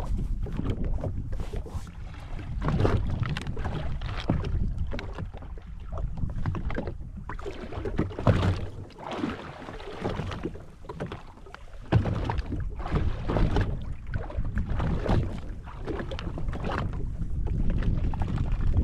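Wind buffeting the microphone and water slapping against a jet ski's hull as it sits on the open sea, in uneven gusts and slaps.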